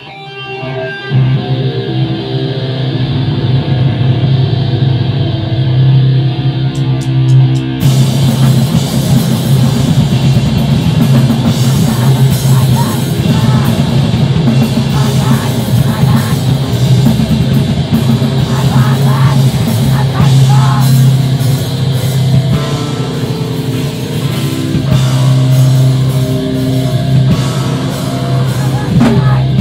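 Screamo band playing live: a held low note from guitars and bass builds over the first several seconds, then drums and the full band crash in about eight seconds in and keep going loudly, with screamed vocals.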